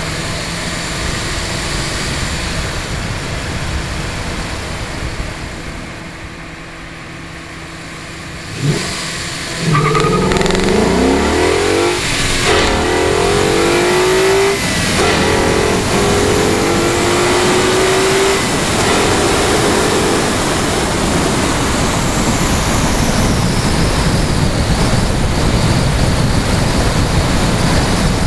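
2011 Ford Mustang GT's 5.0-litre V8 accelerating hard: after quieter running and a short thump, the engine's pitch climbs and drops back at each upshift several times. It then settles into steady loud road and wind noise at speed.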